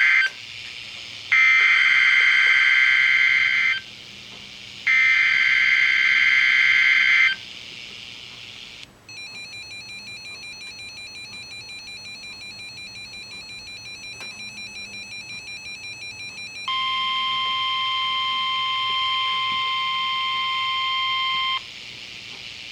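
Emergency Alert System SAME header bursts from a NOAA Weather Radio broadcast: harsh digital data screeches, one ending just after the start and two more of about two and a half seconds each. Then a fainter, fast-pulsing electronic tone for about eight seconds, and then the steady 1050 Hz weather radio alert tone for about five seconds.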